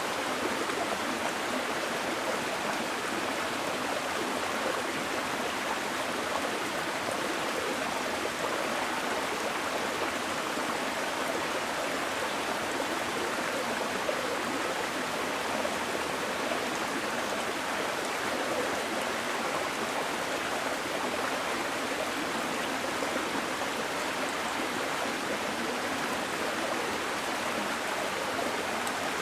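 Small mountain stream flowing over rocks: a steady, even rush of water.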